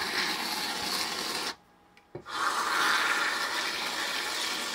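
Aerosol can of Reddi-wip whipped cream spraying in two long bursts with a short break about a second and a half in.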